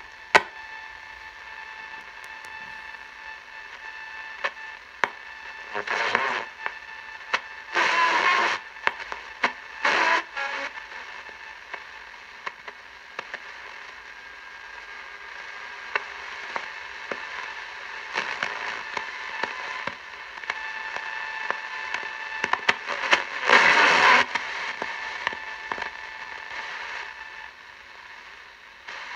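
Grundig Ocean Boy 210 shortwave radio being tuned across its SW4 band: steady static hiss with several steady whistling tones under it and crackle. A few short, louder bursts come through as the dial moves.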